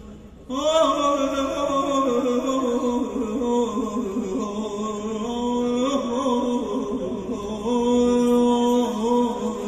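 A man's voice singing a slow, unaccompanied mourning chant through a microphone, entering about half a second in and holding long notes with slow slides in pitch.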